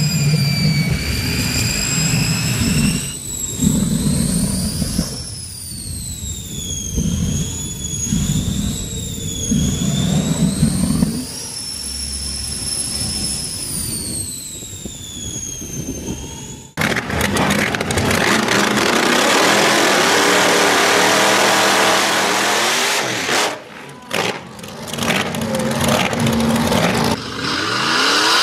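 Jet turbine engine in a T-bucket hot rod whining, the high whine sliding up and down as it spools, over a low pulsing rumble. About 17 seconds in, a sudden cut to the loud running of a supercharged V8 drag car at high revs, which drops briefly twice near the end.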